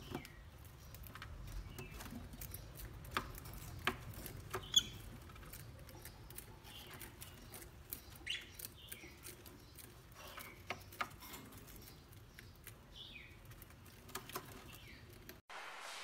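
Peach-faced lovebirds in a wire cage: faint, short chirps every few seconds among scattered soft clicks and ticks.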